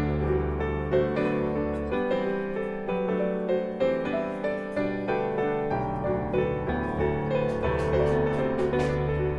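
Instrumental background music carried by a piano melody of sustained notes.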